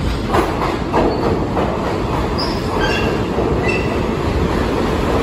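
R160 subway train entering an underground station. Its wheels rumble loud and steady, clacking over rail joints about three times a second at first. Then come several short high squeals as the cars pass along the platform.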